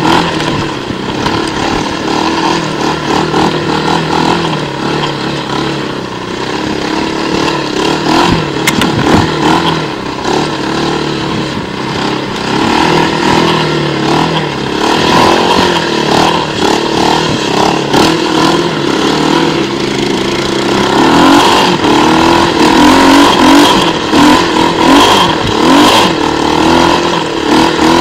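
Quad bike engine running under load, revving up and down as it is ridden.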